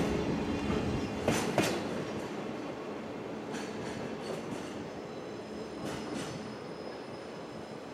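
Steel wheels of a departing freight train of Hoki 1800 hopper wagons rumbling away and fading, with a sharp double knock over a rail joint about a second and a half in and fainter double knocks later, and a faint high wheel squeal.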